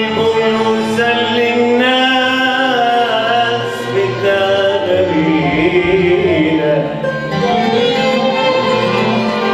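A man singing a mawal, long held notes that waver and bend in pitch, accompanied by an Arabic orchestra with violins and other strings.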